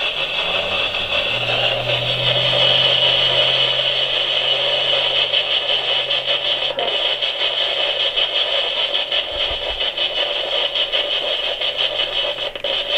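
Spirit box sweeping through radio frequencies: a steady hiss of static, chopped by rapid flicker from the channel scanning. A faint low hum sits under the static for several seconds in the first half.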